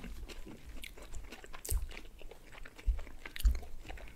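Close-miked chewing and mouth sounds of people eating, with scattered crisp crunches and clicks and a few soft thumps, the loudest about halfway and near the end.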